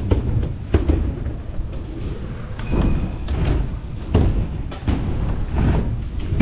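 Mountain bike riding over an indoor course: constant rumbling of tyres and frame, broken by repeated thuds and knocks as it rolls over obstacles, with a brief high squeak about three seconds in.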